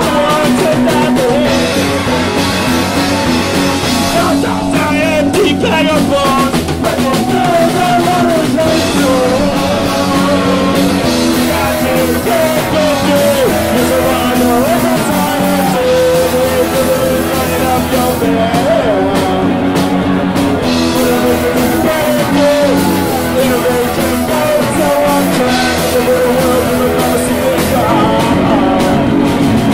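Live punk rock band playing loud: electric guitars and a drum kit, with a singer.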